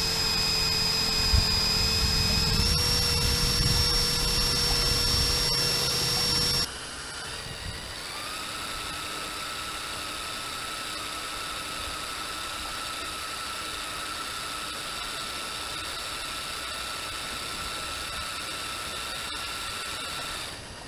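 Electric motors of a LEGO Technic RC amphibious vehicle whining steadily while it runs on water, over a low rushing water noise. The whine steps up slightly in pitch a few seconds in, then drops to a quieter, lower steady whine about a third of the way through.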